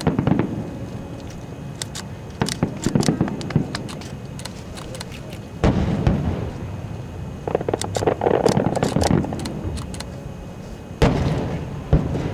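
Aerial fireworks going off: heavy booms from shells bursting, with clusters of sharp crackles and pops between them. The loudest booms come near the middle and twice near the end.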